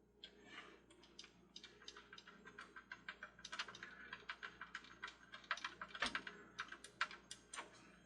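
Rapid, irregular run of light clicks and taps from the small plastic parts of a toy carousel being handled and fitted back together.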